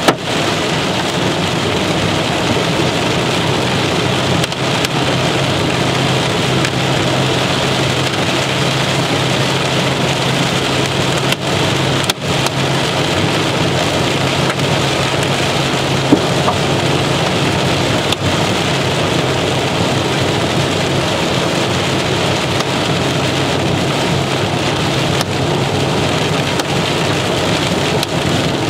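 Heavy rain and hail hitting a vehicle's roof and broken windshield in a continuous dense din, with a few louder single impacts, over a steady low hum.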